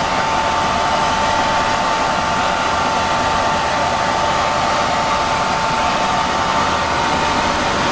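Eurocopter EC130 helicopter's turbine engine running steadily, a constant whine over an even rush of noise, heard from inside the cabin.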